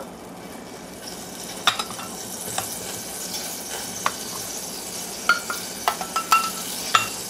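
Turkey grease heating in a stainless saucepan, sizzling steadily as the fat for a gravy roux. Several light metal clinks from a measuring cup scooping flour from a canister.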